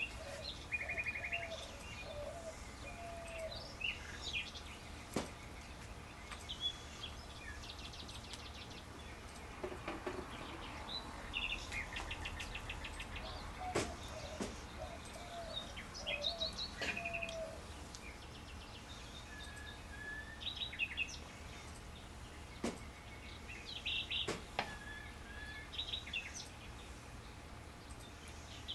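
Birds chirping throughout, with short calls and quick trills, some lower warbled phrases, and a few sharp clicks over a steady low background hum.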